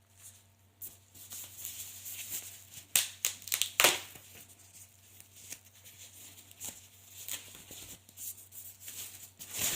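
Hands handling a bookshelf speaker and its packaging: rustling with scattered sharp clicks, the loudest about three and four seconds in, consistent with the speaker's magnetic front grille being pulled off and knocked.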